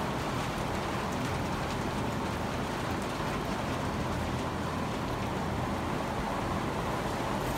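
Steady rain falling: an even, unbroken hiss with no let-up.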